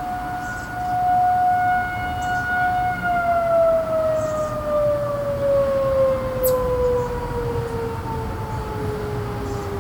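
Outdoor tornado warning siren sounding in the distance during a test: a steady tone held for about three seconds, then falling slowly in pitch as it winds down.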